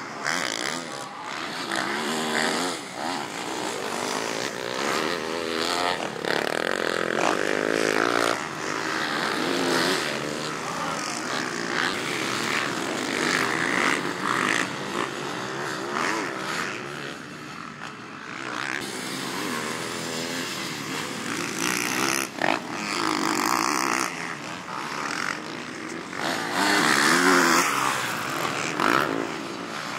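Motocross dirt bike engine revving up and backing off over and over, its pitch climbing and dropping with each throttle change and gear shift on the track, loudest near the end.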